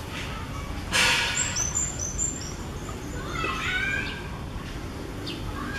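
Birds chirping: a quick run of high, short chirps stepping down in pitch, followed about three seconds in by sliding, wavering calls. About a second in comes a short, loud rustling burst.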